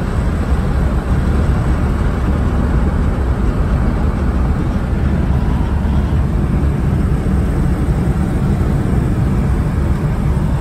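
Vintage car driving at road speed, heard from inside the cabin: a steady low engine drone with road and wind noise.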